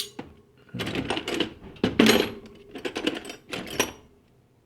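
Steel flat wrenches clinking and clattering against one another as they are handled and sorted, a busy run of metal knocks that dies away about four seconds in.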